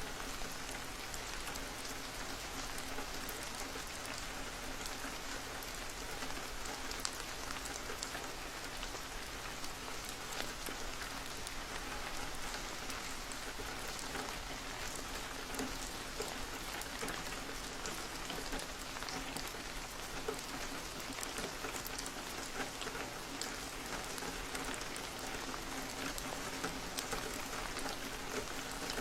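Steady rain, with many separate drops heard as small ticks.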